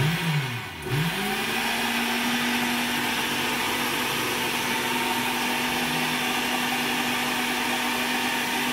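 Countertop blender motor switched on and dropping away within the first second, then restarted about a second in. It spins up and runs at a steady speed, blending a liquid mixture.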